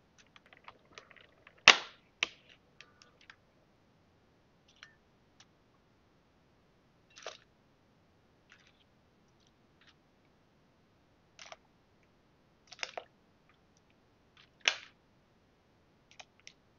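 A plastic clamshell strawberry punnet being opened, with small crackles of the plastic and a sharp snap of the lid (the loudest sound). Then strawberries are dropped one at a time into a glass bowl of water, each landing with a short plop, several spaced a second or more apart.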